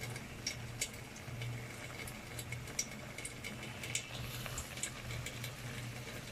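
Liver in a brown sauce simmering in a wok: the sauce bubbles with scattered small pops and crackles, a few a second, over a steady low hum.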